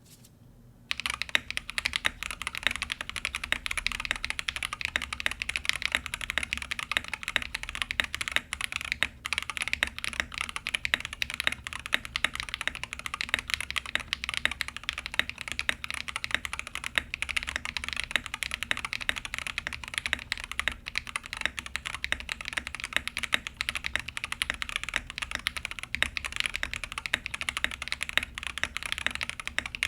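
Fast, continuous typing on a Monsgeek M5 mechanical keyboard with lubed Jelly Strawberry V3 switches on a polycarbonate plate, gasket-mounted with case and PCB foam, and MW Sogurt keycaps. The typing starts about a second in.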